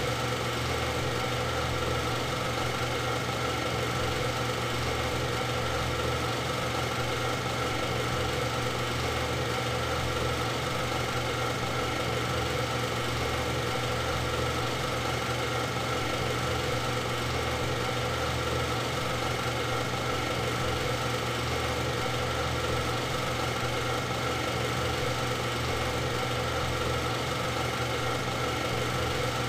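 Super 8 film projector running: a steady mechanical hum with several fixed tones and an even, unchanging level throughout.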